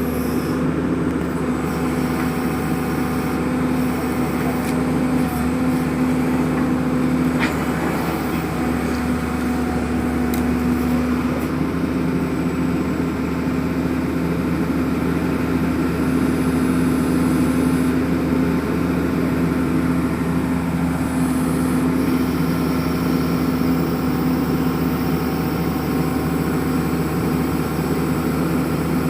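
ZT-21 horizontal directional drilling rig's engine running steadily, a constant pitched hum with no change in speed.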